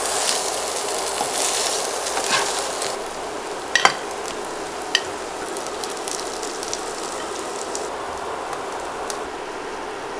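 Tofu blocks pan-frying in a nonstick wok, a steady sizzle that is louder in the first few seconds. Metal tongs click sharply against the pan about four and five seconds in.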